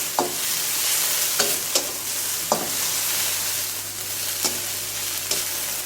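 Sliced ginger, onion and green pepper sizzling in hot oil in a pan as they are stir-fried, with the stirring utensil scraping and knocking against the pan about once a second.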